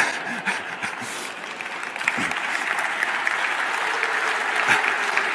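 Audience clapping, growing fuller and louder about two seconds in.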